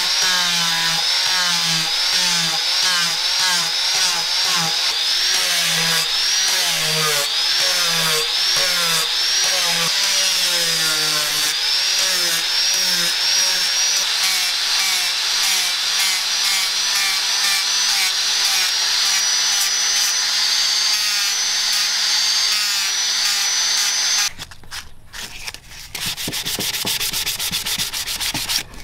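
Angle grinder with a sanding disc running under load, its high motor whine wavering up and down as it grinds the saw-blade knife and its wooden handle. About 24 seconds in it stops abruptly and gives way to sandpaper rubbing quickly back and forth on the wooden handle by hand.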